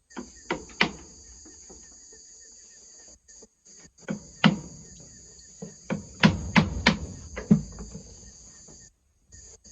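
Sharp knocks struck by hand during repair work: a couple near the start, then a cluster of about five in the second half. A steady high chirring of insects runs underneath.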